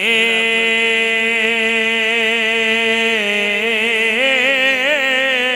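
A man's voice singing Punjabi devotional verse, holding one long note for about three seconds. The note then drops slightly and wavers in quick ornamental turns.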